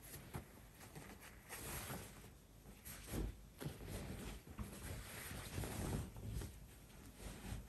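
Cotton pillowcase rustling and brushing as it is handled and pulled over a pillow, in irregular bursts with a few soft thumps of the pillow.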